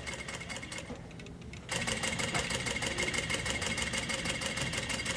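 Juki industrial sewing machine stitching at speed, a fast, even mechanical chatter that gets louder about a second and a half in.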